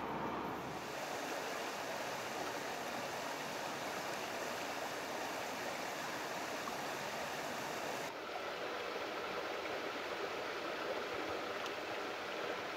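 Shallow stream rushing and splashing over rocks in a steady wash of water noise, which shifts slightly about eight seconds in.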